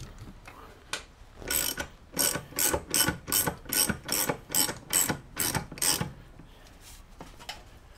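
A motorcycle scissor jack being cranked with a ratchet to raise the bike higher, giving about a dozen even ratcheting strokes, two or three a second, which stop about six seconds in.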